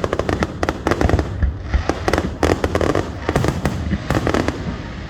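Fireworks going off: dense runs of sharp pops and crackles in quick clusters, one after another, over a low rumble.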